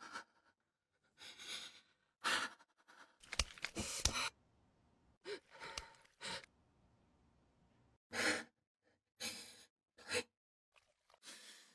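A woman's distressed breathing, heard as short separate gasps and shaky exhales with pauses between them. A few soft thumps come about three to four seconds in.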